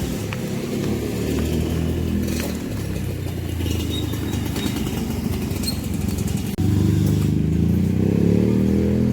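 A motor vehicle's engine running steadily, with a louder stretch after a sudden jump about six and a half seconds in.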